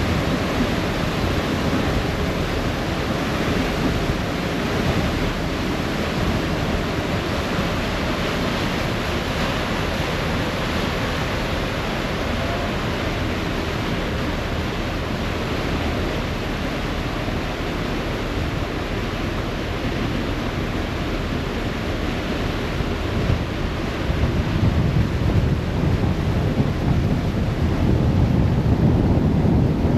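A harbour ferry's wake rushing and churning behind the stern, mixed with wind buffeting the microphone, a steady noisy rush. The wind buffeting gets louder over the last few seconds.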